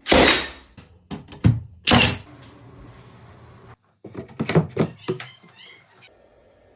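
A series of sharp wooden knocks and thunks: a loud one at the start, three more over the next two seconds, then a quick cluster of knocks about four to five seconds in.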